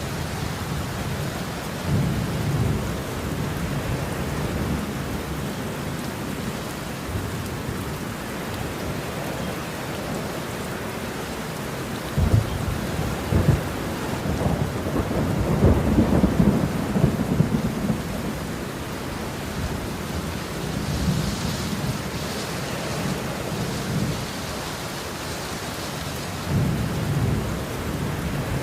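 Thunderstorm: steady rain falling, with rolls of thunder rumbling through it, the loudest a long roll about midway that opens with sharp cracks.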